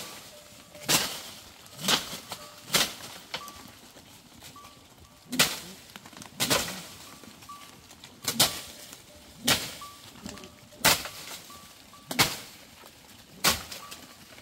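About ten sharp chopping blows struck into tree branches, roughly one a second, with a pause of about two seconds after the third.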